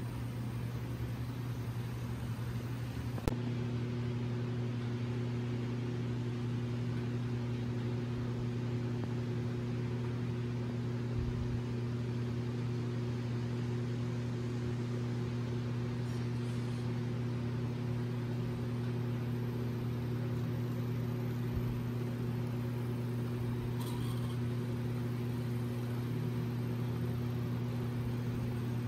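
Steady electric hum of HO-scale model diesel locomotives running on the layout: a low tone with overtones that grows fuller after a click about three seconds in.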